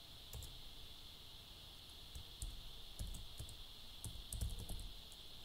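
Faint keystrokes on a Toshiba laptop keyboard as a login password is typed: a few scattered taps, then a quick run of keys from about three seconds in.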